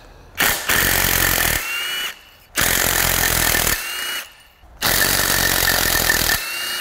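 Cordless impact wrench run three times, each a loud hammering burst of about a second that drops to a quieter spin ending in a short rising whine, as it breaks loose and backs out spark plugs.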